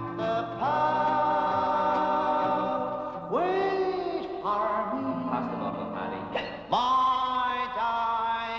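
Male vocal trio singing long held notes in close harmony, with electric guitar accompaniment, the chord changing every second or few.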